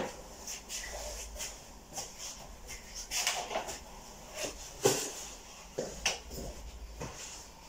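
Scattered knocks, clicks and rustling of someone handling things and moving about in a small room. One of the clicks is the room's wall light switch being flicked off.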